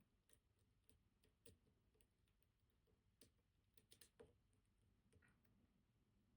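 Faint, scattered light clicks of a lock pick and tension wrench working the levers of a MIWA PR high-security lever lock, each lever probed in turn to feel whether it is binding or loose. The clicks are sparse, with a small cluster about four seconds in.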